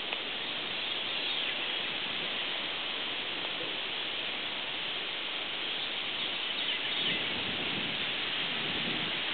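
Steady outdoor background hiss with a few faint bird chirps.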